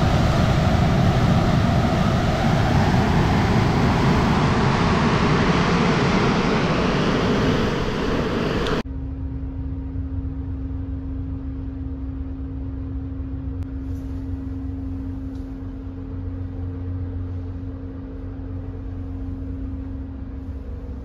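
Seawater rushing and breaking around a tanker's bow as the ship makes way, a loud steady rush. About nine seconds in it cuts off suddenly to a quieter, steady low hum with a steady drone, the ship's machinery heard inside the accommodation.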